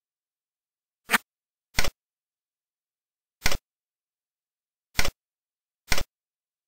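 Tux Paint's button-click sound effect, five short sharp clicks at uneven spacing as the stamp palette's page arrow is clicked through.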